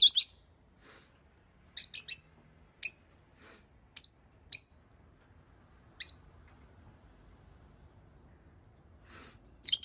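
Rosy-faced lovebirds giving short, shrill chirps, singly or in quick clusters of two or three, every second or so, then falling quiet for about three seconds before a final burst near the end.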